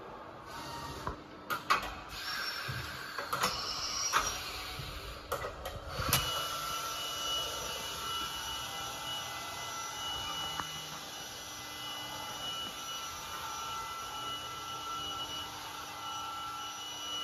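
Powered-up Hartford She Hong vertical machining center humming steadily, with several constant high whining tones. A few sharp clicks and knocks come in the first six seconds.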